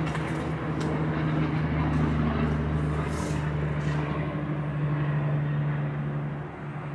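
Motor vehicle engine droning steadily, a low hum over road noise, easing off slightly near the end.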